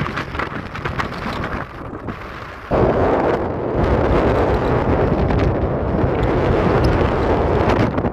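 Strong mountain wind blowing across the microphone as a steady rushing noise with low buffeting. A harder gust hits suddenly about a third of the way in and holds at that strength.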